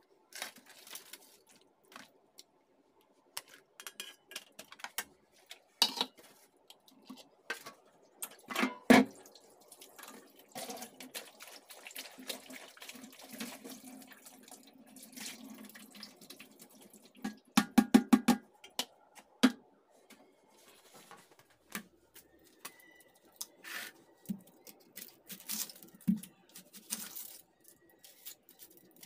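Water splashing and dripping in a stainless-steel sink as things are rinsed, with scattered knocks and clatter of bowls and a metal tray. A quick run of about eight knocks comes a little past the middle.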